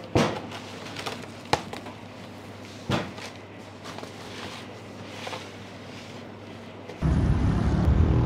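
Plastic cling film stretched over a tray of marinated chicken, crackling in a handful of sharp snaps while gloved hands smooth it down. About seven seconds in it gives way suddenly to a steady low rumble of street noise.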